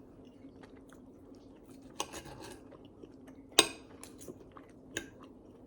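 Eating at a table: a fork or spoon clinks sharply against a plate four times, once much louder than the rest, with quiet chewing between.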